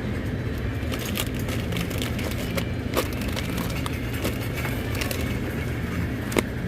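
Steady low background hum with scattered light clicks and knocks, the sharpest knock near the end.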